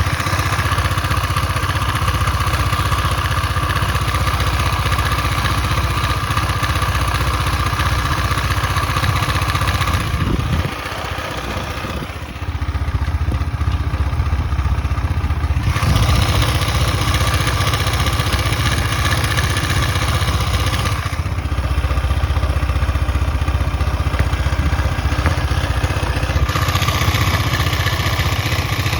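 KTM 250 Duke's single-cylinder engine running steadily, with the engine noise the owner questions as a possible problem after 12,000 km. The level drops briefly about ten seconds in, then returns.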